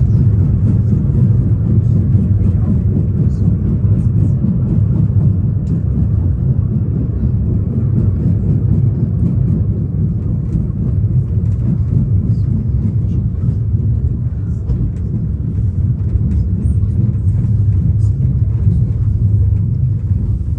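Salzbergbahn funicular car running uphill: a steady low rumble with a few faint clicks.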